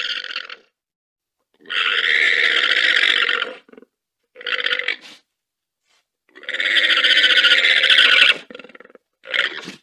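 Llama calling repeatedly: four calls with short silences between them, two of them about two seconds long and two shorter, the last starting near the end.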